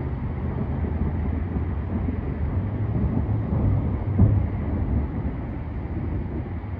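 Gusty wind buffeting the phone's microphone, a low rush that swells and eases, strongest about four seconds in.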